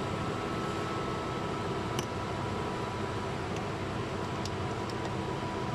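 Steady mechanical hum of workshop background noise, with a few faint light clicks about two seconds and four and a half seconds in.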